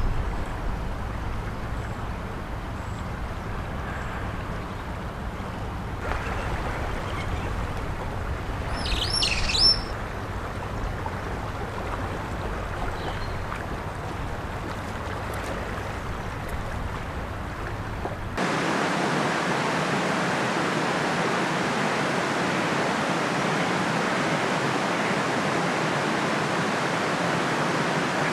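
Flowing floodwater in a river, a steady rushing noise that becomes louder and brighter after a sudden change about two-thirds of the way through, with a low rumble under the first part. A bird gives a short burst of chirps about nine seconds in.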